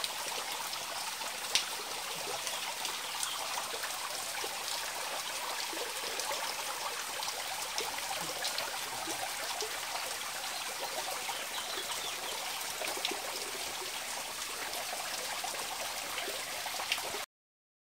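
Spring water trickling down a mossy rock face into a shallow pool, a steady splashing with scattered drips; it cuts off suddenly near the end.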